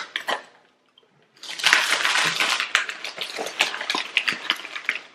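Crinkling and rustling of a potato chip bag as a hand rummages inside it for chips, starting about a second and a half in.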